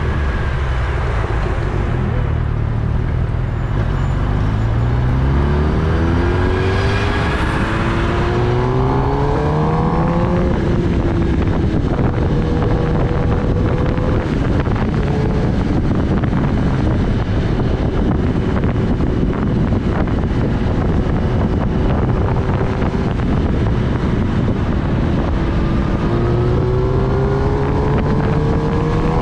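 Kawasaki Ninja ZX-10R's inline-four engine under way, rising in pitch as it accelerates over the first ten seconds, running steadily through the middle, and climbing again near the end. Wind rushes over the microphone throughout.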